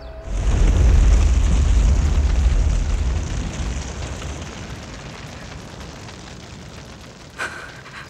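A sudden loud explosion about a third of a second in, its deep rumble dying away slowly over several seconds. A short sharp knock comes near the end.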